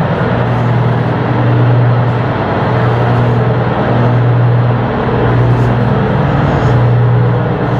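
Ship's diesel engine running steadily, a loud low hum over dense mechanical noise.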